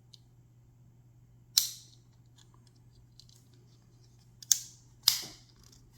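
Three sharp metallic snaps, about a second and a half in and twice near the end, with a few faint clicks between: Victorinox Swiss Army knife tools springing open and shut against their backsprings.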